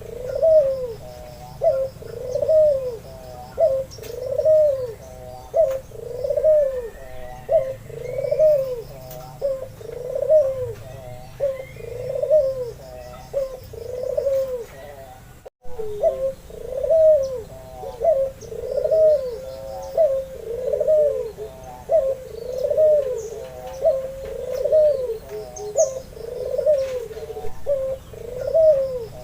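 White albino puter dove (turtle dove) cooing continuously in a steady rhythm of repeated rising-and-falling coo notes, broken once briefly about halfway through.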